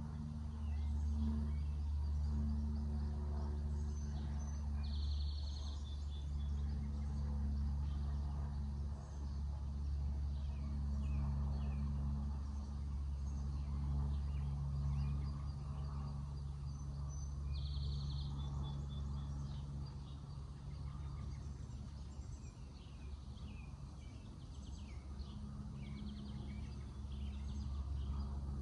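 Backyard ambience: a steady low hum runs underneath while small birds chirp, with two short high buzzy calls about twelve seconds apart.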